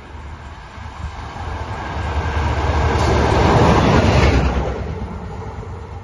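Electric locomotive running light, with no train behind it, passing at speed. The rumble of its wheels on the rails swells to a peak about four seconds in, then fades quickly as it goes by.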